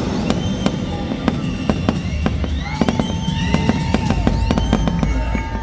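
Aerial fireworks shells bursting in a rapid, continuous string of bangs and crackles. From about halfway through, sliding whistle-like tones and a held note join the bangs.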